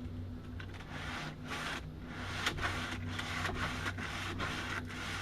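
Sheet of sandpaper rubbed by hand back and forth over a painted wooden drawer top, about three strokes a second starting about a second in. A steady low hum runs underneath.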